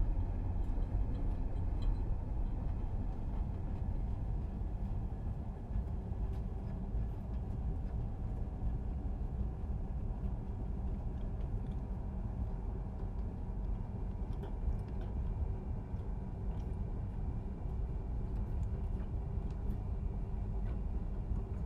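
Commuter train heard from inside the carriage: a steady low rumble of running on the rails, with a few faint scattered clicks.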